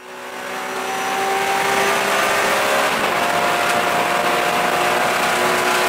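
Porsche GT3 RS's flat-six engine running steadily at high speed, heard from inside the cabin over a steady rush of noise, fading in over the first two seconds.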